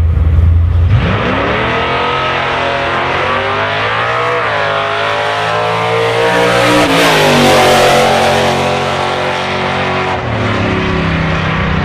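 Ford Mustang Mach 1 engine through a new exhaust, running low and steady, then revving up about a second in and held at higher revs with the pitch wavering upward, before dropping back to a lower steady note near the end.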